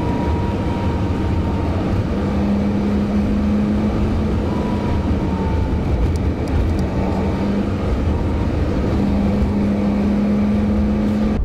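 Articulated lorry (HGV) on the move: steady diesel engine drone and road rumble with a constant low hum.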